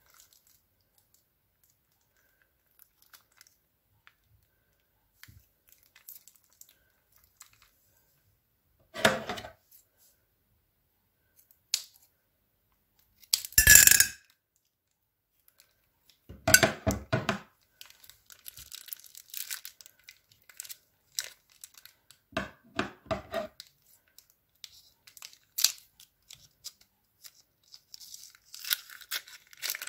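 Scissors snipping and tearing a plastic piping bag and the cellophane crinkling as it is handled, in several separate bursts with quiet gaps; the loudest cut comes about two-thirds of the way through the first half, with a run of smaller crinkles later on.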